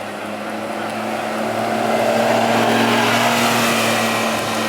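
A vehicle passing close by: a steady engine hum under a rush of noise that builds, peaks about halfway through and fades away.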